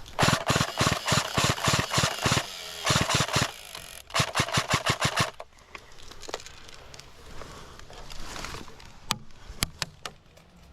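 Airsoft gun firing in three quick strings of sharp shots, about five or six a second, with a pause between each string. A few single sharp cracks follow near the end.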